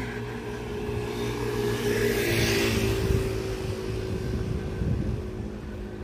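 A motorbike passing along the street, its engine and road noise swelling to a peak about two to three seconds in and then fading.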